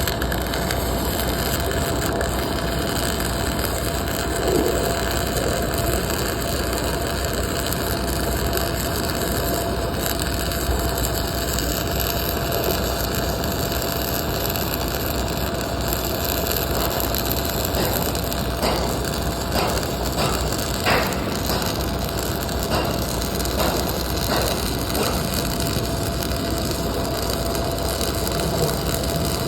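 Welding arc giving off a steady crackling hiss. There are a few sharp pops and clicks in the second half.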